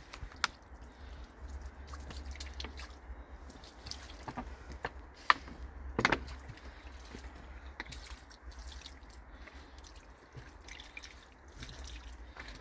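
Water pouring from a large plastic bottle, splashing and trickling onto a polished granite grave slab, with a few sharp clicks along the way.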